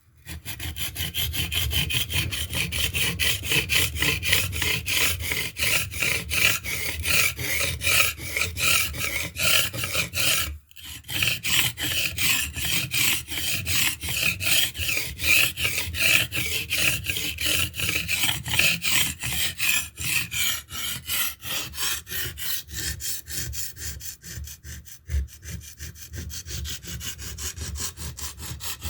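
Steel knife blade being stroked rapidly back and forth over a wet limestone sharpening stone, an even rhythmic scraping with a brief pause about a third of the way in and lighter strokes near the end. The stone seems to polish the blade more than cut into it.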